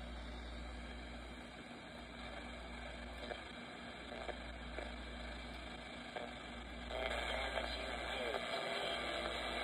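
Small emergency radio giving out static and hiss over a low steady hum as it is tuned. About seven seconds in it gets louder as a weak station starts to come through the noise.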